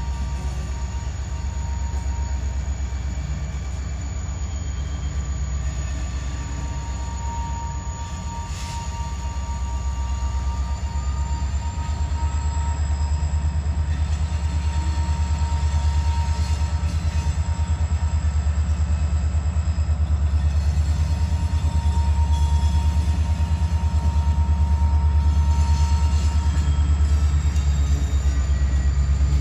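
Lake State Railway freight train rolling past: a steady low rumble that builds somewhat after about ten seconds, with thin high wheel squeal coming and going over it.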